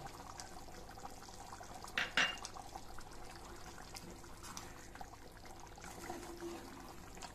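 Curd being poured into a simmering egg kurma in a clay pot and stirred in with a ladle: faint wet pouring and stirring sounds, with two sharp knocks about two seconds in.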